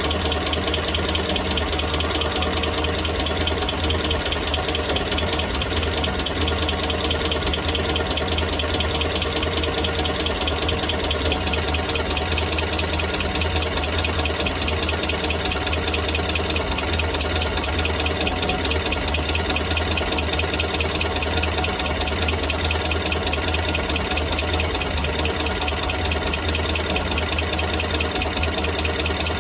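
Engine idling steadily with an even, unchanging note, its exhaust leak repaired; the remaining noise is what the owner is checking.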